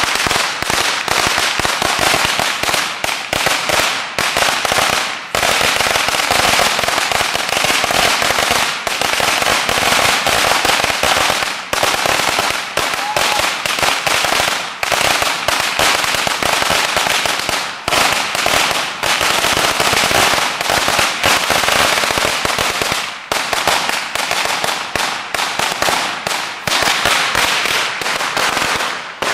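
Fireworks going off in a dense rapid-fire run of bangs and crackle, an almost unbroken string of sharp reports with a few brief let-ups.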